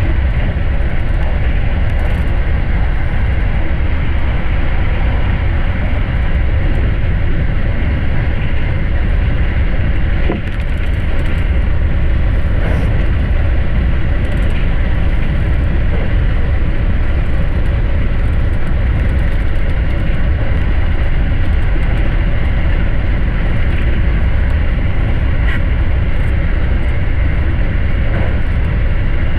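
Electric Special Rapid commuter train running at speed: a steady, loud rumble of wheels and motors with a heavy low end, dipping briefly about ten seconds in.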